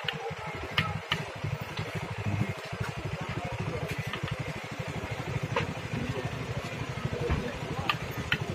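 A motor vehicle engine idling with a rapid low putter, with a few sharp clinks of a steel ladle against a steel pot.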